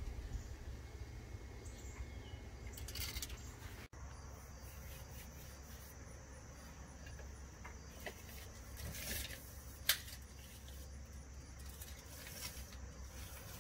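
Outdoor ambience with a steady high insect drone, broken by scattered light clicks and rustles of handling and one sharp click about ten seconds in.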